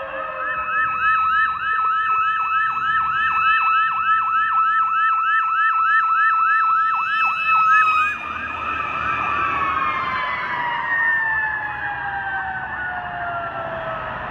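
Fire truck sirens at close range: a yelp, rapid sweeps about three to four times a second over a steady higher tone, until about eight seconds in. After that a siren tone falls slowly and steadily as the yelp fades out.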